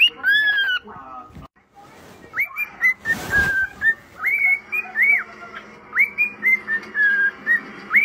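Cockatiel whistling a tune in a run of short, clear notes that swoop up and down, with a brief rush of noise about three seconds in.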